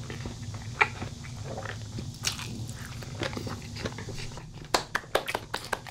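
Close-miked eating sounds: a person biting, chewing and crunching food, with a sharp crunch about a second in and a quick run of crisp crunches near the end.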